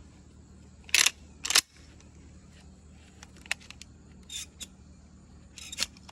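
Pump-action shotgun being worked by hand: two loud metallic clacks half a second apart, the slide racked back and forward to chamber a shell, followed by a few lighter clicks and handling rattles.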